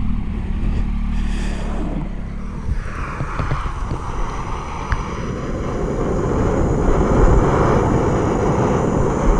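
A motorcycle engine runs for about the first two seconds. It then gives way to the steady rushing hiss of a gas canister camping stove burning under a pot.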